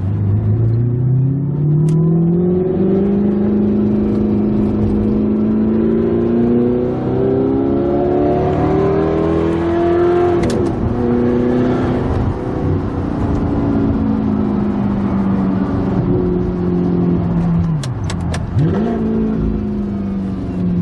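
Audi R8 V8 with an Armytrix valved exhaust, heard from inside the cabin while driving, making a smooth 'F1 hum' exhaust tone. The pitch climbs over the first few seconds, dips briefly about ten seconds in, then falls with a quick dip and rise near the end. Armytrix attributes the hum to the fiberglass packing in the muffler burning.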